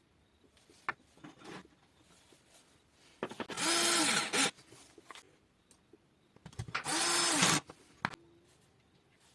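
A homemade disc sander driven by a 24 V 775 DC motor runs in two short bursts of about a second each, its whine rising as it spins up and falling as it is switched off, with a loud hiss. A few small clicks come before and after the bursts.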